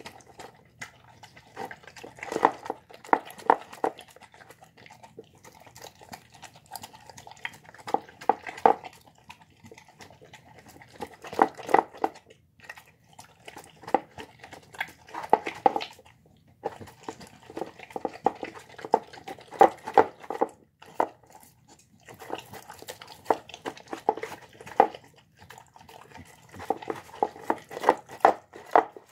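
Mixed-breed dog eating brown rice and egg with vegetables from a plastic bowl: chewing and licking in bursts of quick clicks every few seconds, with short quieter pauses between.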